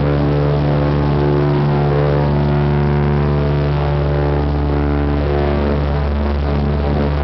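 Super DC-3's two engines and propellers at takeoff power during the takeoff roll, heard from inside the cockpit: a loud, steady, deep drone.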